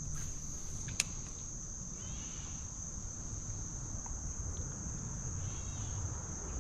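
A steady, high-pitched drone of insects such as crickets calling, with one sharp click about a second in.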